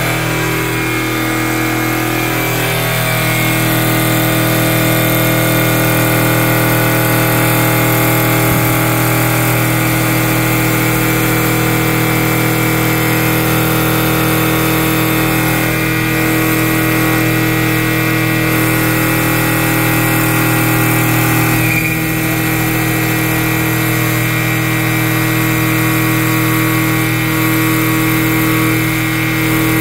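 CNC wood lathe running, its cutters and spinning brush sanding wheel working a turning wooden spindle into a baluster shape: a steady motor hum over the continuous hiss of wood being cut and sanded.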